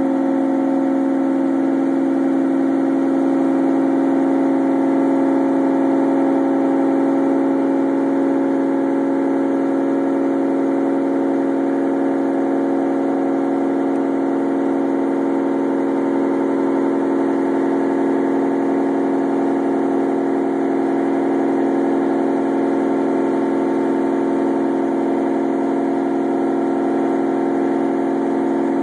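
2002 Ford Lightning's supercharged 5.4-litre V8 running steadily on a chassis dyno, holding an even pitch without revving.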